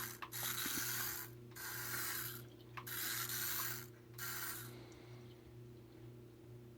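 Small toy car running across the floor, its gears and wheels giving a rasping, ratcheting whirr in several bursts, then going quiet about five seconds in. A steady low hum runs underneath.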